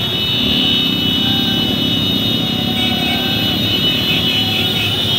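Many motorcycle engines running together in a close pack, a steady drone with a steady high-pitched whine over it.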